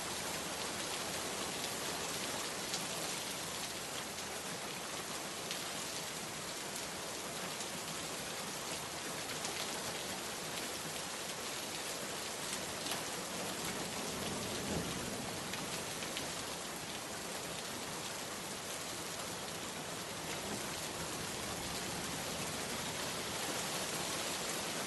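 Steady rain falling on a surface, a dense even hiss with scattered individual drop ticks.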